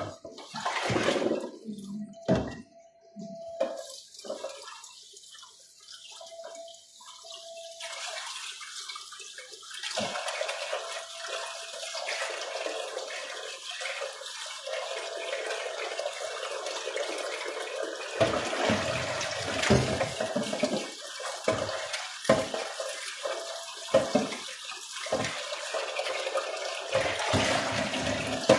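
Tap water running into a kitchen sink, with repeated knocks and clatter of items being handled in the sink during the second half.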